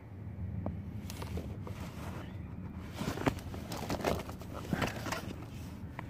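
Hands rummaging through a nylon bag and handling small cardboard souvenir boxes and a plastic-wrapped flag, giving irregular rustles and light clicks, busiest in the second half, over a steady low rumble.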